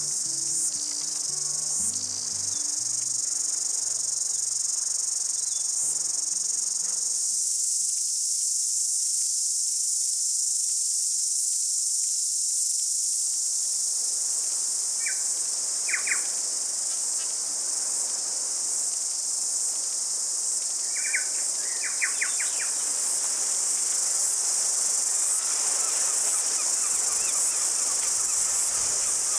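Steady, loud, high-pitched buzzing chorus of cicadas. A bird gives short chirps in two brief clusters, about halfway and two-thirds of the way through. Low soft music notes fade out over the first ten seconds or so.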